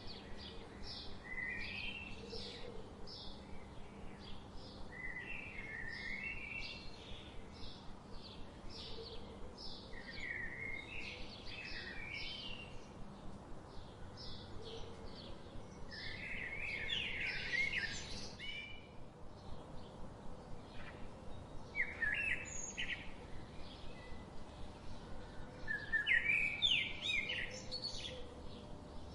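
Birdsong from more than one bird: a steady series of short, high chirps, about one or two a second, under louder warbling phrases that come every few seconds and are loudest about two-thirds of the way through and near the end.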